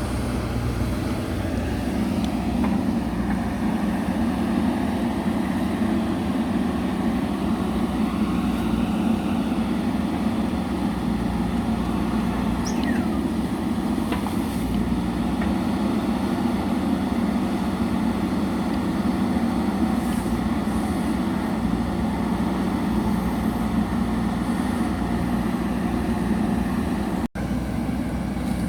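JCB backhoe loader's diesel engine running steadily as the machine works. The sound cuts out for an instant near the end.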